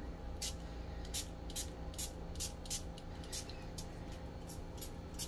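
Pump-spray cologne bottle spritzed again and again: about a dozen short hissing sprays, two or three a second.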